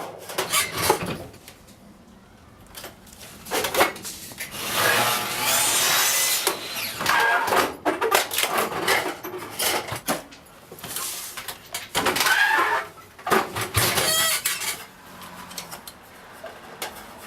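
Hand work on aluminum sheet flashing as it is marked and cut: irregular bursts of metallic scraping, rattling and cutting, each a second or two long, with short pauses between.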